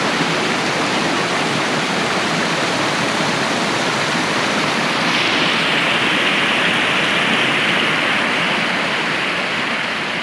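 A rain-swollen creek rushing over rocks at a crossing, a loud, steady rush of water. It grows brighter and hissier from about halfway through.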